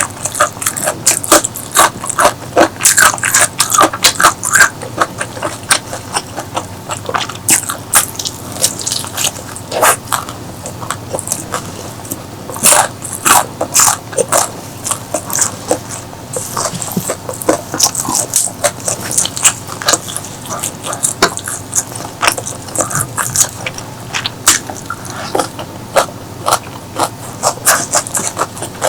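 Close-miked biting and chewing of crispy fried chicken: a dense run of irregular crunches and crackles.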